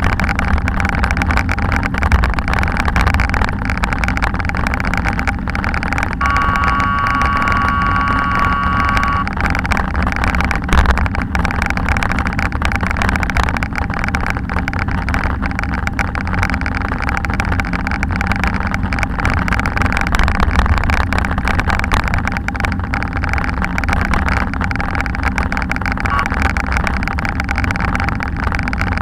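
Steady rumble of a bicycle rolling over a brick-paved bike path, heard through a bike-mounted action camera, with road traffic running alongside. A high held tone sounds for about three seconds, some six seconds in.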